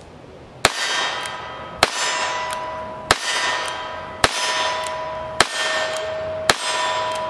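Six shots from a Ruger New Model Single Six .22 single-action revolver, about one every 1.2 seconds. Each crack is followed by a metallic ring lasting about a second, like a steel target being hit.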